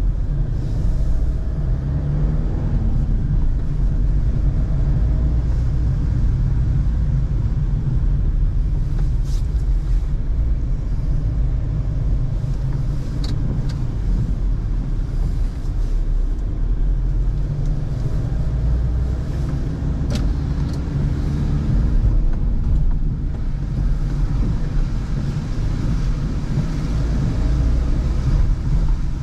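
Car driving on wet city streets, heard from inside the cabin: a steady low engine and road rumble whose pitch rises and falls gently with speed, with a few sharp clicks.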